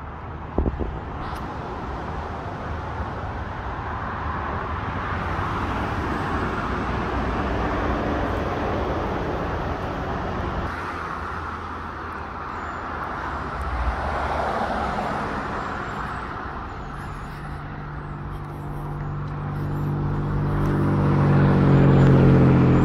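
Steady outdoor noise of motor traffic, with an engine hum that swells louder near the end as a vehicle comes closer.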